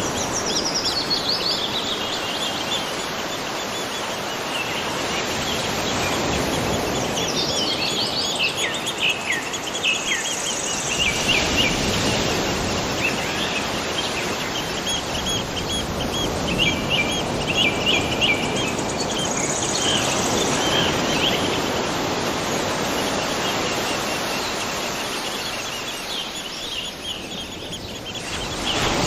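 Steady rush of falling water from a monsoon-fed waterfall and stream, with small birds singing over it in repeated chirps and quick descending trills.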